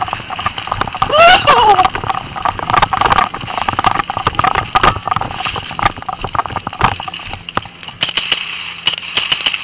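Paintball markers firing across the field in rapid, irregular pops, with a shout about a second in.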